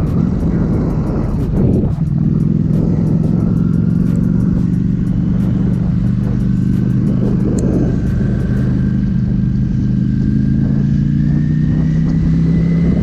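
Ducati Panigale V4S's V4 engine running at moderate, steady revs. After a brief unsettled patch about two seconds in, it settles into a drone whose pitch creeps slowly upward, with a faint high whine rising alongside.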